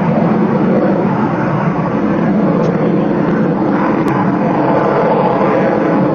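Sukhoi fighter jet flying an aerobatic display manoeuvre, its engine noise a steady, dense rushing sound that does not let up.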